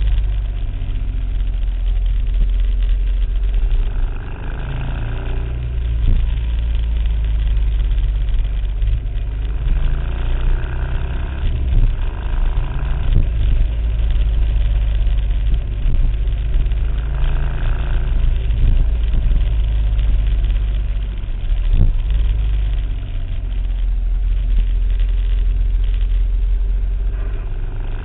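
A vehicle's engine running steadily at low speed while it is ridden slowly, with a strong low drone throughout.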